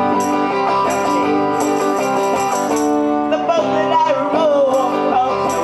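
Live pop-rock song: a woman sings into a microphone over electric guitar chords and a beat of short high jingling hits. Her voice comes through most strongly from a little past halfway.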